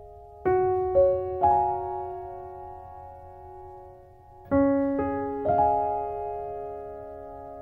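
Slow, gentle piano music. Chords and single notes are struck in small groups about four seconds apart, each group ringing on and slowly fading.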